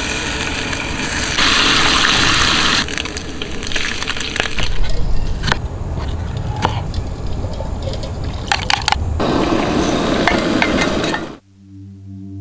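Turkey bacon sizzling in a frying pan, loudest a couple of seconds in, then scattered sharp knocks and clinks of camp cookware and a wooden cutting board. Soft ambient music takes over near the end.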